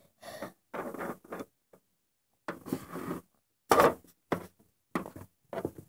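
Handling noise from toy figures being moved by hand over a wooden dollhouse floor: a string of short, irregular rustles and scrapes with brief gaps between them.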